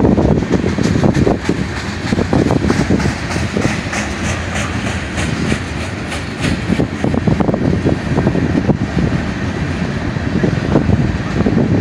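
Freight cars of a manifest train rolling past close by: a steady rumble of steel wheels on rail, with repeated clicks as the wheels pass over rail joints.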